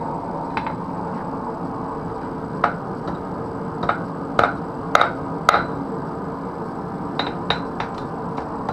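Light, irregular blacksmith's hammer blows on metal, each a sharp ringing clink, about ten in all and bunched in the middle and near the end. They sit over steady forge background noise.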